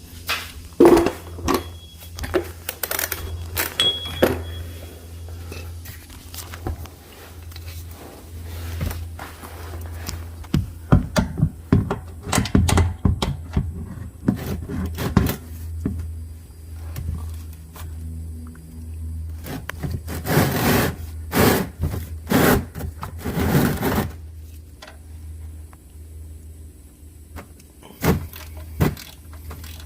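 Metal hand tools clanking, scraping and clicking in scattered knocks, with a quick run of clicks about eleven to thirteen seconds in, as a ratchet and socket are worked on an oil drain plug during an oil change.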